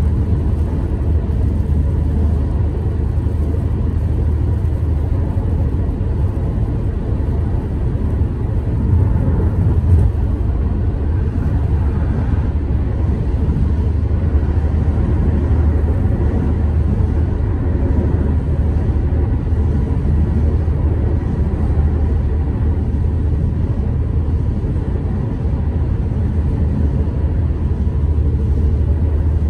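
Steady low rumble of road and tyre noise heard inside a car cruising on a highway.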